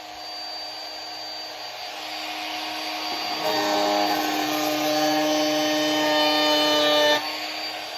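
Electric power tool motor running with a steady hum, its sound shifting and growing louder about three and a half seconds in, then switched off abruptly about seven seconds in.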